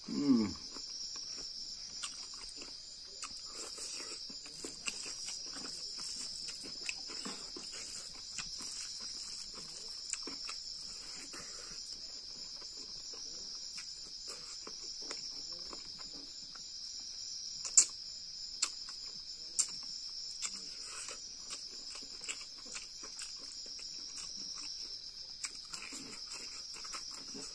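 Insects trilling steadily at a high pitch throughout, over close eating sounds of a man eating fish and rice by hand: scattered chewing and lip-smacking clicks. There is a short sound falling in pitch right at the start and a sharp click about two-thirds of the way through.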